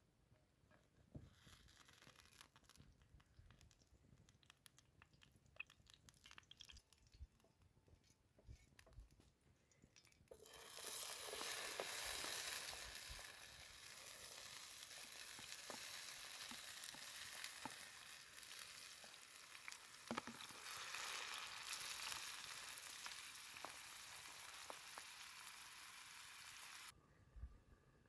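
Chopped tomatoes sizzling in hot oil in a pan over a wood fire: faint crackles at first, then a sudden loud, steady sizzle about a third of the way in as the food hits the oil, which stops abruptly shortly before the end.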